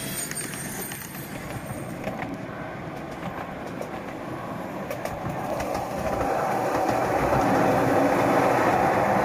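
Miniature ride-on railway train rolling along its track, the wheels running on the rails with a few clicks, growing louder about six seconds in.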